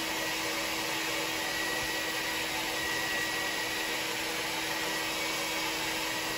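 Hair dryer running steadily: a constant rush of air over an even motor hum.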